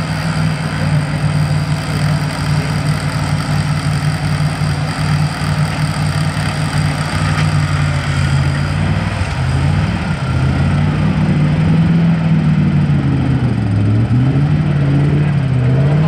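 Off-road 4x4's engine running at steady high revs while the wheels spin in the mud, spraying it up. From about halfway through, the revs rise and fall repeatedly as the vehicle works its way up the muddy bank.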